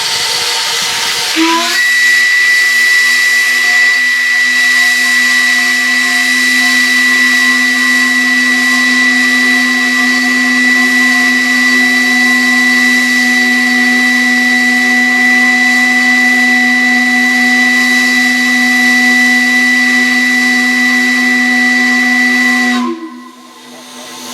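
Steam whistle sounding one long steady blast of about twenty seconds over a hiss of steam, cutting off sharply near the end. A second and a half of steam hiss leads in before the whistle speaks.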